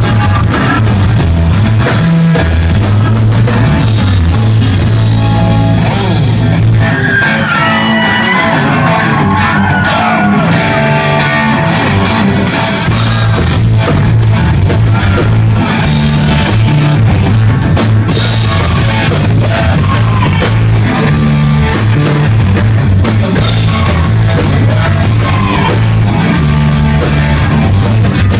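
Hard rock band playing live and loud, with electric guitar, bass and drum kit. The cymbals drop out for a few seconds about six seconds in, then the full band crashes back in.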